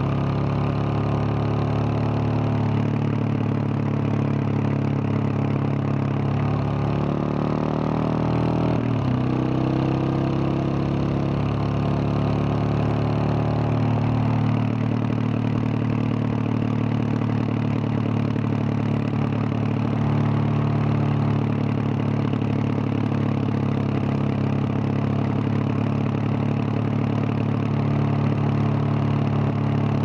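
2021 Husqvarna 701 Supermoto's single-cylinder four-stroke engine running under way through a Wings aftermarket exhaust with baffle and spark arrestor. The engine note is mostly steady; its pitch falls and then climbs again about eight or nine seconds in, and changes again around fourteen seconds.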